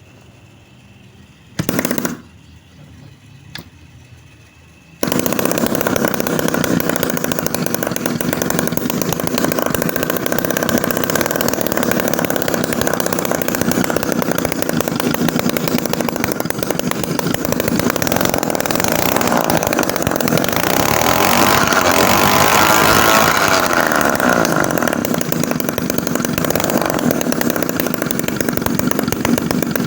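Homemade mini two-stroke engine built from refrigerator-compressor parts: a short burst about two seconds in, then the engine starts about five seconds in and runs steadily, getting a little louder in the middle.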